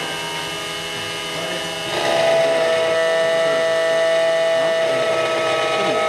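SEC E9 automatic key cutting machine's spindle motor and cutter running steadily while milling the cut into a HON66 key blade. It is a steady mechanical whine that steps up in level about two seconds in, as the cutter bites into the metal.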